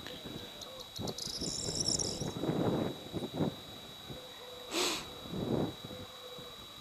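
Open-field outdoor ambience: uneven low rustling gusts, a steady high-pitched whine, a burst of high chirping about a second in, and a short hiss about five seconds in.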